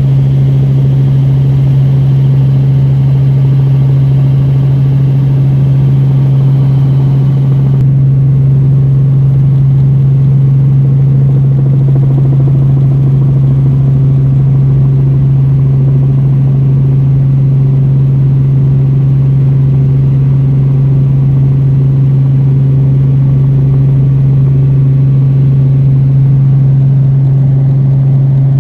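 A steady, loud, unchanging motor hum of the rotorcraft filming from overhead, with one strong low tone and fainter overtones. The higher hiss drops away about eight seconds in.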